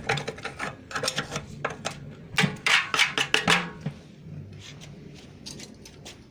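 Hand scraping of caked grime off a metal washing machine part: a string of short, quick rasping strokes, fastest and loudest in the middle and softer near the end.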